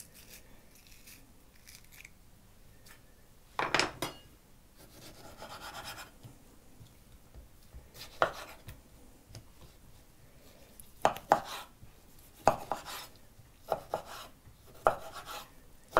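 Small kitchen knife cutting through tomatoes onto a wooden cutting board. The blade knocks on the board at irregular intervals, a few sparse knocks at first, then coming closer together over the last five seconds.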